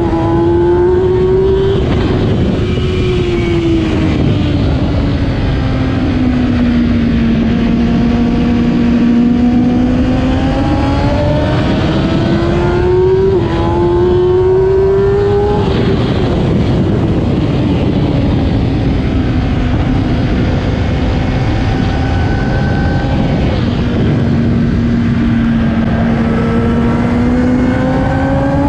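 A 2008 Kawasaki ZX-10R's inline-four engine at race pace: the revs drop slowly off the throttle a couple of seconds in and again about halfway through, then climb hard under acceleration twice.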